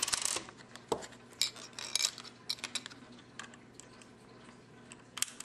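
A five-cent coin clattering inside a Lego gumball machine as the machine is shaken to drop it into the coin tray, with Lego plastic parts knocking. A quick burst of clatter at the start, then scattered single clicks.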